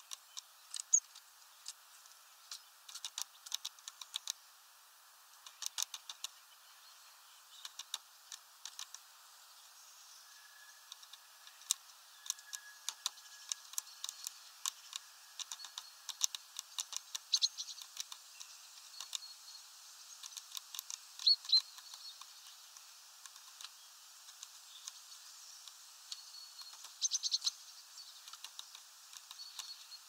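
Great tit pecking and hammering at seed on a plastic feeder, making irregular sharp taps and clicks, with a few faint high chirps.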